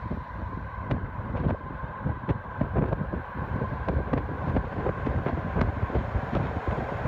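Strong wind buffeting the microphone as air is driven down the subway tunnel ahead of an approaching train, in uneven gusts, with a low rumble from the train beneath.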